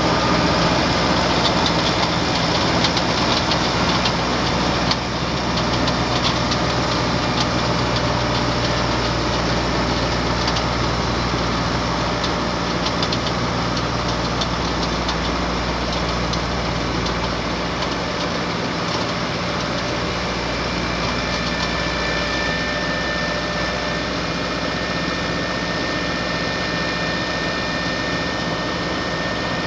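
Ford 5610 tractor's diesel engine running steadily while working a hay baler. A thin high whine joins in about two-thirds of the way through.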